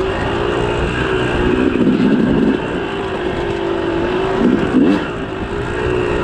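Yamaha YZ250 two-stroke dirt bike engine running under way, its revs holding fairly even with a couple of brief dips and rises, over heavy wind noise on the microphone.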